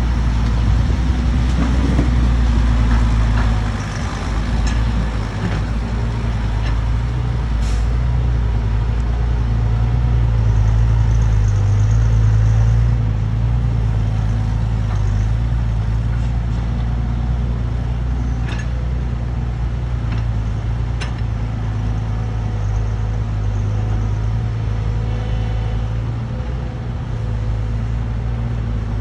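Excavator's diesel engine running under working load, its pitch and level rising and easing as the machine works, with a few sharp metallic knocks.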